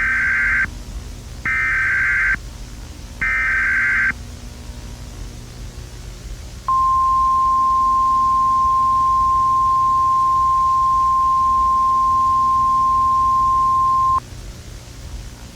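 Emergency Alert System tones: three short bursts of SAME digital header data, each just under a second, then after a pause a single steady alert tone held for about seven and a half seconds that cuts off sharply.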